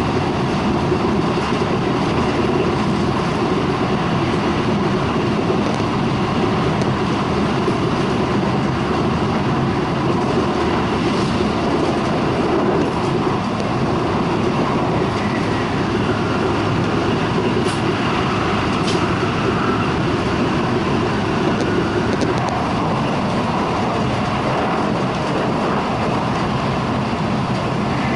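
Shinkansen bullet train running at speed, heard from inside the passenger car: a steady, dense rumble and rush. Two faint clicks come about two-thirds of the way through.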